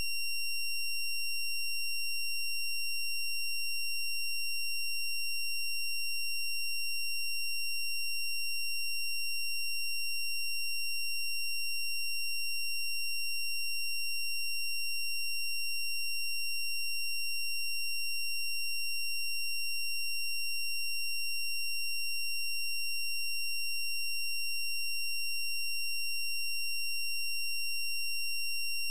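A steady, high-pitched electronic tone with overtones, unchanging throughout.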